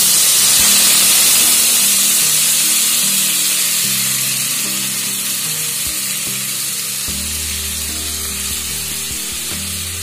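Washed rice sizzling loudly in hot ghee and cumin in a pressure cooker as it fries; the sizzle is strongest at first and slowly dies down. Soft background music underneath.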